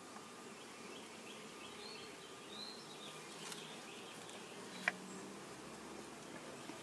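Honeybees buzzing in a steady, faint hum as the last bees of a package are shaken into the hive, with a single sharp tap about five seconds in.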